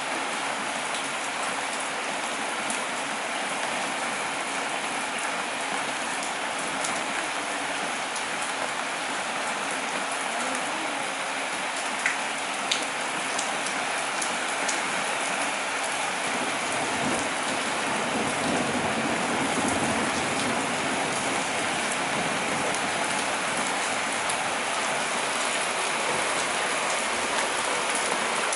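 Steady rain falling and pattering on surfaces at the start of a thunderstorm. Two sharp ticks come about twelve seconds in, and a faint low rumble swells and fades a little past the middle.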